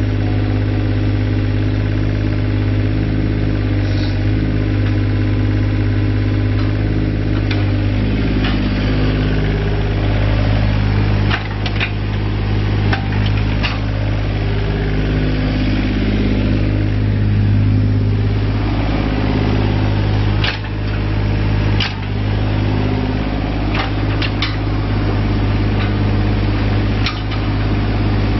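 2007 Takeuchi TB135 mini excavator's diesel engine running steadily while the machine is worked, its note wavering up and down as the hydraulics take load while the upper structure swings and the boom and arm move. Short sharp clanks sound now and then, about a dozen in all.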